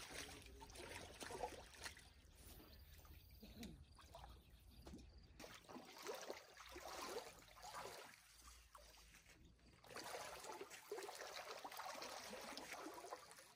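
Faint trickling and lapping of shallow lake water, with small irregular drips and splashes.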